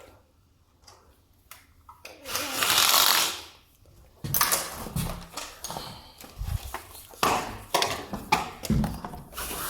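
An old window being forced open: a loud scraping slide lasting about a second and a half, then a run of knocks and rattles as the sash and frame are worked.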